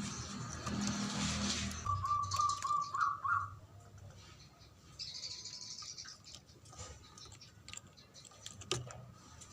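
Zebra dove (perkutut) cooing: a quick run of short, rolling notes about two seconds in, rising in pitch at the end. Faint scattered clicks and rustles follow.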